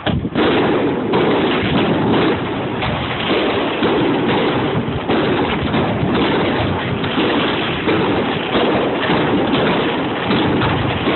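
Fireworks going off in a dense, continuous barrage of bangs and crackles, starting abruptly.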